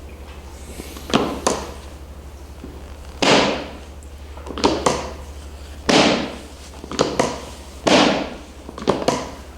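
A series of sharp thumps and knocks, about eight, irregularly spaced and some in quick pairs, each trailing off briefly. A steady low hum runs under them.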